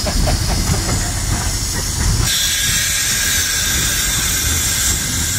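Cab of Rio Grande K36 #484, a narrow-gauge 2-8-2 steam locomotive: a low rumble, then a little over two seconds in a loud, steady steam hiss starts suddenly and keeps on.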